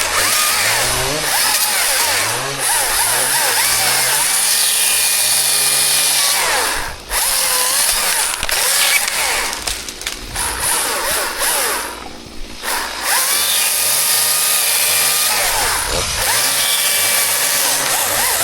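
Chainsaw running and cutting wood, its pitch rising and falling over and over, with brief dips about 7 and 12 seconds in.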